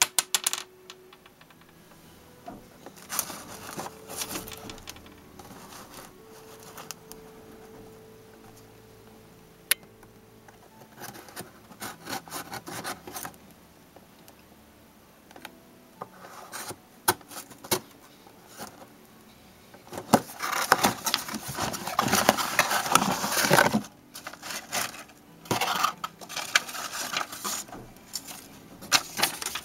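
Cardboard toy box being handled and worked open with a pen-style hobby knife: scattered taps, rubs and short scrapes, with a longer, louder stretch of scraping about twenty seconds in.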